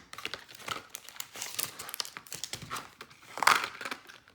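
Plastic blister packaging of a Pokémon card pack crinkling and crackling as it is pried and torn open by hand, with a louder burst of crackling about three and a half seconds in.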